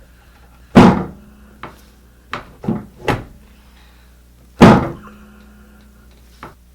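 Heavy thuds and knocks on a chiropractic treatment table during adjustments: two loud thuds about four seconds apart, with a few lighter knocks between them and a faint one near the end.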